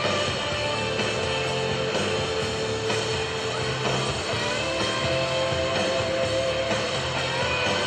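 Rock music with electric guitar, playing steadily.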